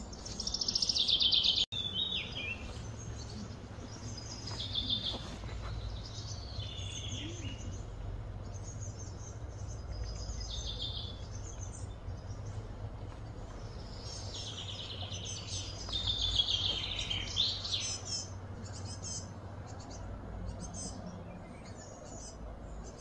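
Songbirds singing in short, repeated trilled phrases. They are loudest about a second in and again around two-thirds of the way through, over a low, steady background rumble.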